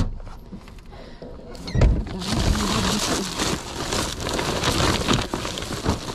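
A thud just before two seconds in as a load is set down in a car's cargo area, then plastic bags rustling and crinkling as gloved hands push them around.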